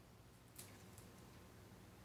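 Near silence: room tone, with a few faint sharp clicks about half a second and a second in.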